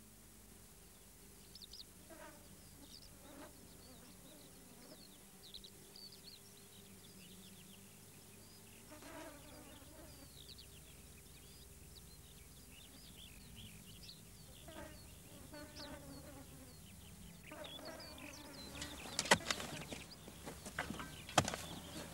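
Faint outdoor ambience of scattered short high chirps and buzzing insects. Near the end comes a run of sharp clicks and knocks.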